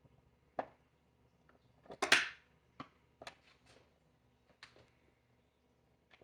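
Scattered light clicks and knocks, with one louder scrape about two seconds in, from a nut driver being fitted to and worked on the white screws of the dispenser's plastic front cover.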